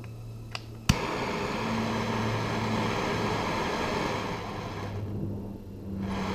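Bernzomatic TS3000 trigger-start torch firing: a couple of small igniter clicks, a sharp snap about a second in as it lights, then the steady hissing rush of the flame. The rush eases off about four seconds in and picks up again near the end. The torch now lights on the trigger and holds its flame, a sign that the gas adjuster feeds gas properly again.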